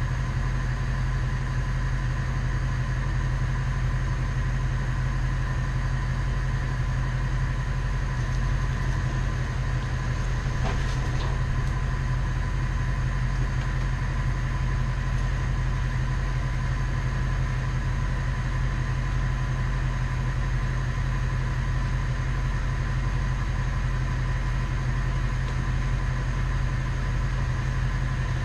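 A 1996 bucket truck's engine running steadily at idle: an even, deep drone with a faint steady high tone above it.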